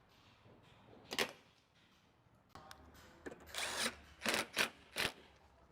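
Hand work on the truck's front end: a few sharp clicks and knocks of tools and parts being handled, with a short half-second rasping burst past the halfway point.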